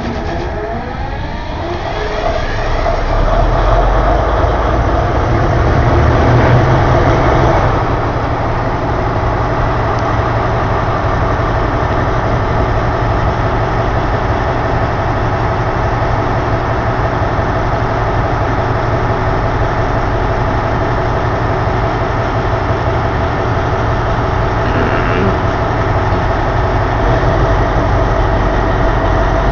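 MTU diesel engine of an Alsthom ALS-class locomotive just after starting: it picks up speed and gets louder over the first few seconds, peaks around six to eight seconds in, then settles into a steady idle.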